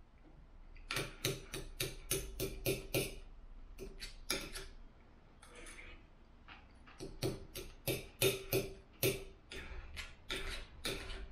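A person chewing food with wet smacking clicks of the mouth, coming in quick irregular runs of several clicks a second with short pauses between.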